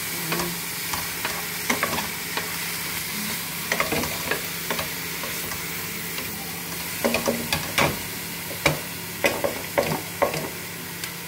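Chopped vegetables sizzling in hot oil as they are stir-fried in a pan, a steady hiss broken by the sharp clacks of a spatula against the pan. The clacks come thickest in the second half.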